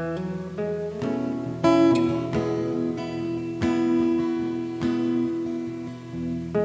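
Acoustic-electric guitar playing strummed chords that ring out, a new chord struck about every second, recorded through a BM800 condenser microphone and V8 sound card.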